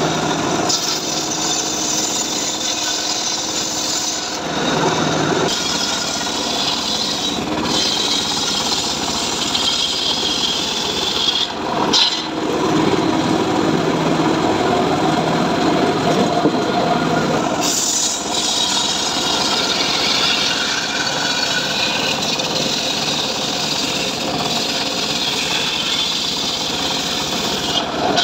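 Homemade bench circular saw ripping rain tree (trembesi) timber: the big blade running loaded through the wood with a steady rasping noise. The sound shifts several times as the cut goes on, with a brief dip about twelve seconds in.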